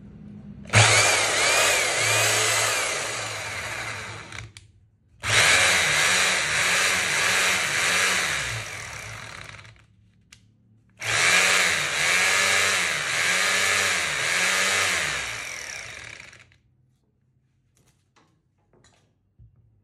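Makita HR2631F corded rotary hammer drill test-run after servicing, running in three bursts of about four seconds each. Each burst starts abruptly and loudly and eases off a little, with the motor speed rising and falling on the trigger before it cuts off.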